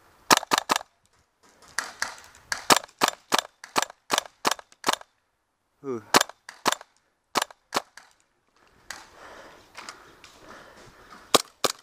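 Gas blowback airsoft guns firing semi-automatic: sharp pops, with a quick triple shot near the start, then strings of single shots about two to three a second, broken by short pauses. A brief shout cuts in around the middle.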